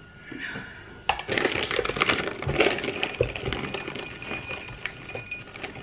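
Metal hand-mixer beaters clinking and rattling as they are handled and fitted into the mixer. A burst of dense metallic clinks starts about a second in, then thins to scattered light clicks.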